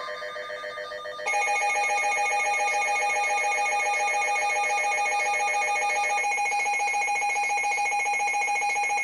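Electronic emergency alert alarms trilling rapidly, two of them overlapping. A quieter one is already sounding, a louder one cuts in about a second in, the quieter one stops around six seconds in, and the louder one cuts off suddenly near the end. They signal a new severe thunderstorm warning coming in.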